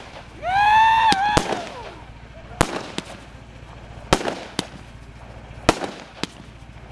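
Aerial fireworks going off: sharp bangs of shells bursting, about one a second, some in quick pairs. Near the start a loud high-pitched tone rises, holds for about a second and then slides down.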